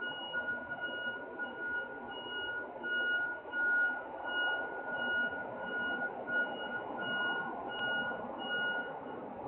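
A semi-truck rig's warning alarm beeping: a high, steady-pitched beep repeating about twice a second over a steady background rumble. It stops near the end.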